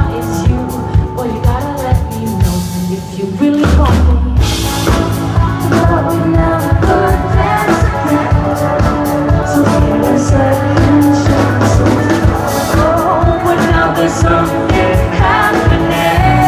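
Live pop-rock band performing with a choir singing and brass playing over a steady drum-kit beat. About three and a half seconds in, the full band comes in louder.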